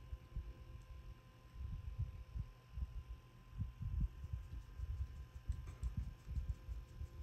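Irregular low thumps and knocks of hands working beaded wire with small jewellery pliers on a table, with a few faint small clicks about two-thirds of the way through, over a faint steady hum.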